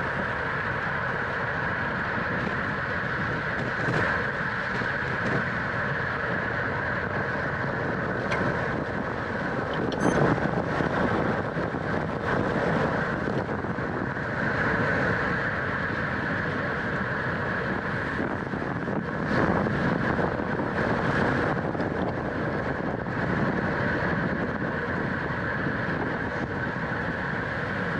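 Steady wind rush over the microphone of a road bike racing at speed in a criterium, with a few brief louder gusts about ten and twenty seconds in.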